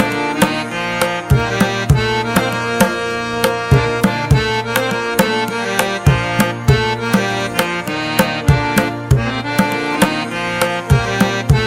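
Background music: tabla drumming with held melodic notes from a reed instrument such as a harmonium, at a steady beat.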